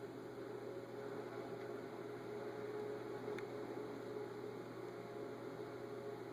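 Steady low electrical hum with a light hiss of background noise, and one faint click about halfway through.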